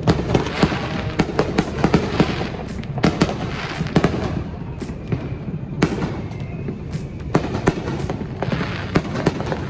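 Many consumer fireworks going off around the neighbourhood: a dense, irregular string of sharp cracks and bangs over a continuous low rumble.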